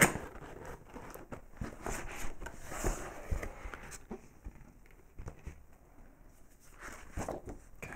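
A cardboard box being opened by hand: the lid sliding off the tray, with scrapes, taps and rustles of the packaging, busier in the first few seconds and quieter after.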